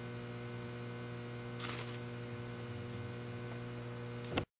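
Steady electrical mains hum with a stack of even overtones, a brief soft hiss about two seconds in, then a click and the sound cuts off abruptly near the end.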